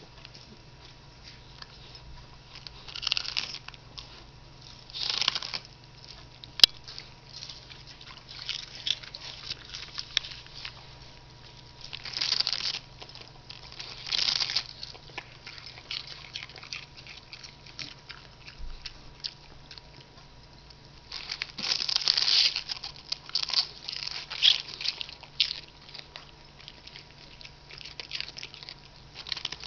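Beagle biting and chewing crisp romaine lettuce leaves: irregular bursts of wet crunching, with quieter clicking chews between them and the longest spell of crunching about two-thirds of the way through.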